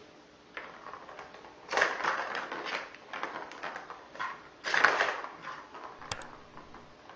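A plastic ball rolling and rattling around the channel of a plastic ball-track cat toy as kittens bat at it, in uneven bursts that are loudest about two seconds in and again around five seconds. A short sharp click comes about six seconds in.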